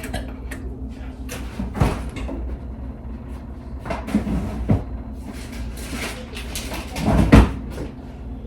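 Kitchen handling sounds during lunch packing: scattered clicks and knocks of cupboards and containers, with a heavier thump about seven seconds in, over a steady low hum.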